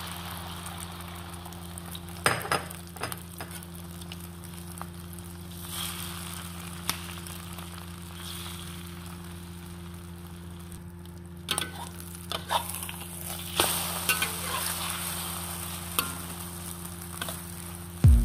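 Beaten egg mixture with chopped chili, shallot and tomato frying in hot oil in a wok: a steady sizzle, with a few knocks and scrapes about two seconds in and again around twelve to fourteen seconds.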